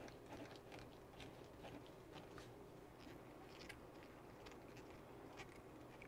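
Faint, irregular small clicks and scrapes of hands unscrewing a screw from a plastic RC truck chassis and handling its parts.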